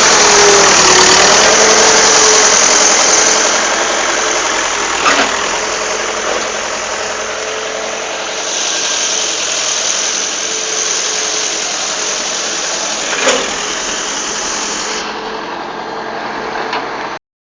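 Excavator's diesel engine running steadily with a loud, even noise, and two brief knocks, about five and thirteen seconds in. The sound cuts off suddenly just before the end.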